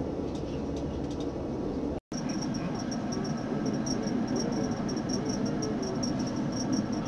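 Low rumble of a tram running on its rails, heard from inside the driver's cab. It breaks off for an instant about two seconds in, and after that a thin, high chirping repeats about four times a second over the rumble.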